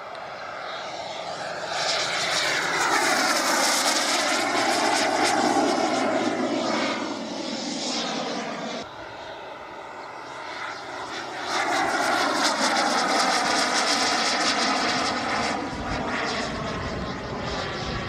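Radio-controlled L-39 Albatros model jet flying past twice, its engine's whine and rush swelling as it approaches, the pitch falling and rising as it passes. The first pass breaks off suddenly about nine seconds in, and a second pass builds a few seconds later.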